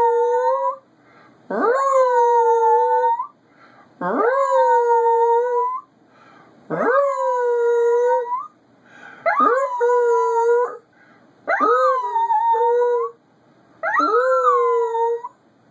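Chihuahua howling: a string of six or seven long howls, each about a second and a half. Each scoops sharply up in pitch at the start and is then held steady, with short breaths between.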